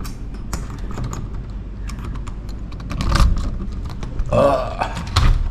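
Handheld movement noise of someone walking indoors: scattered clicks and knocks from footsteps and handling, with a heavier thump about three seconds in. Just after four seconds, as a wooden room door is reached, there is a short creak, then a thump near the end.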